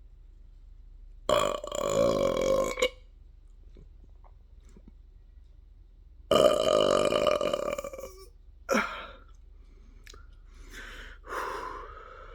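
A person burping loudly: two long burps of about a second and a half each, then a short burp and softer ones near the end.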